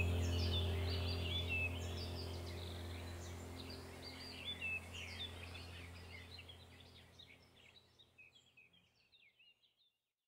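Birds chirping over a low steady hum. The whole sound fades out steadily to silence near the end.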